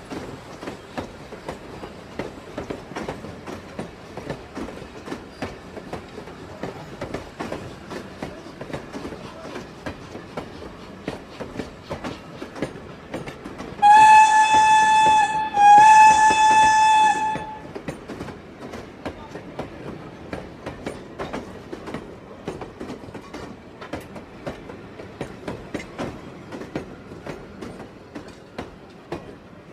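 Steam train running with a steady clatter, sounding two blasts of its steam whistle about halfway through, one clear pitched tone with overtones, the second blast a little longer. The clatter grows slightly fainter near the end as the train departs.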